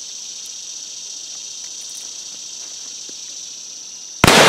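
Steady high chirring of insects, then near the end a single loud shot from a Lyman Great Plains .50 caliber percussion muzzleloading pistol, fired with a light powder charge the shooter puts at about 10 grains and calls a kind of wimpy shot.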